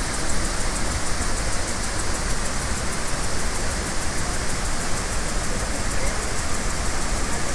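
Iguazu Falls' many cascades of water pouring into the gorge: a steady, even rushing roar with a low rumble underneath.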